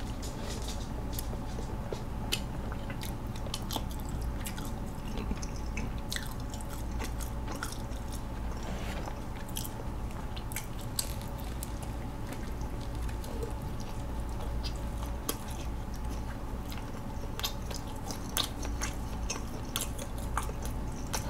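A person chewing quietly with soft, scattered mouth clicks, eating chewy bubble-tea tapioca pearls, over a steady low hum.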